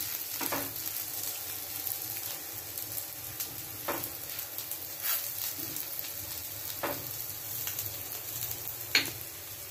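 Potato wadya (steamed grated-potato cakes) shallow-frying in oil on a flat non-stick tawa: a steady sizzle with a few sharp clicks, as a silicone brush dabs more oil over them.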